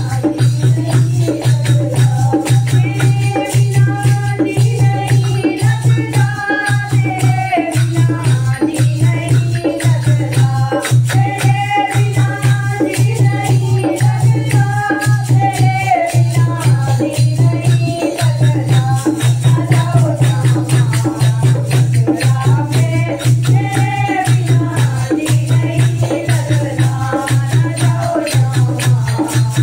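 A group of women singing a Hindi devotional kirtan song together. The singing is backed by a steady rhythm of jingling hand percussion, including a chimta, over an evenly pulsing low beat.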